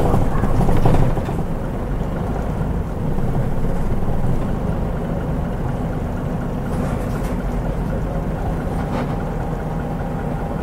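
Mitsubishi Fuso KL-MP37JK bus's turbocharged 6M70 six-cylinder diesel running while the bus drives. It is louder in the first second and swells again about three seconds in, then holds steady.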